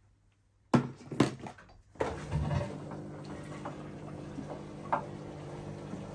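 Two sharp knocks, then the Hoover DXOA610AHFN-80 washing machine running steadily on its rapid cycle, a low hum with a few held tones.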